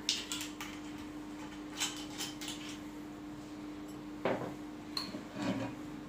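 Glass bottles handled and set down on a wooden table: scattered light clinks and clicks, then a sharper knock a little past halfway and a few more near the end, over a faint steady hum.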